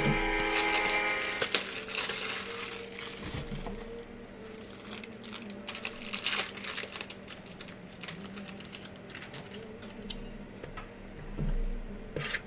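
Guitar music that stops about a second and a half in. Then plastic shrink-wrap crinkling and light clicks as a sealed trading-card box is handled, its wrap being slit with a knife near the end.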